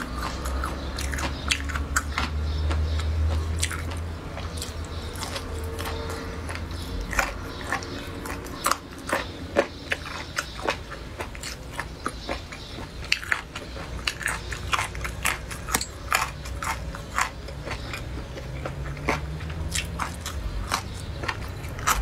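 Close-miked mouth sounds of chewing and biting braised chicken feet and other lu wei offal, with frequent sharp crunchy clicks throughout.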